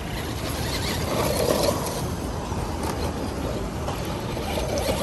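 Electric RC short-course truck (Traxxas Slash 2WD chassis) driving over dirt and gravel, its motor and tyres heard against a steady low background rumble. The sound swells about a second in and again near the end.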